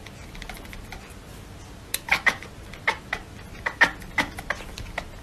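A domestic cat making a run of short, clipped calls with its mouth wide open, about a dozen starting some two seconds in, coming irregularly a few to the second.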